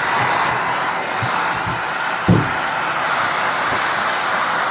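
Handheld hair dryer blowing steadily, with a few short low thumps, the loudest a little over two seconds in.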